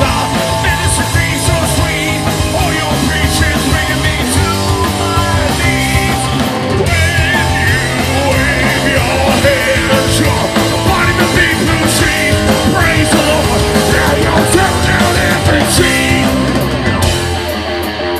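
Rock band playing live and loud: electric guitar over a drum kit with cymbals. The bottom end thins out slightly near the end.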